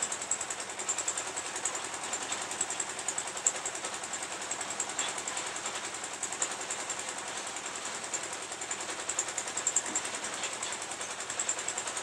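The concrete lift mixer's small engine running steadily with a fast, even clatter.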